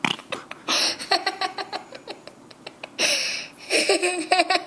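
A little girl laughing hard: runs of quick laugh pulses with breathy gasps in between.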